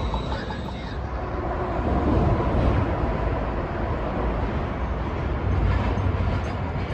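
St. Louis Metrolink Siemens SD460 light-rail train moving off, its thin high whine cutting out about a second in, then a steady low rumble.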